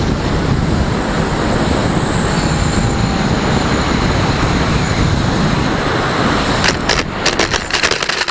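Steady rushing airflow noise on the onboard FPV camera of a Firstar 2000 RC motor glider flying low. From about seven seconds in comes a rapid run of knocks and scrapes as the glider touches down and skids across the sand.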